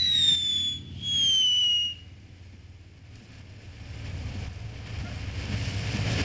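Ground fountain firework going off: two falling whistles in the first two seconds, then the hiss of its spark spray, growing steadily louder.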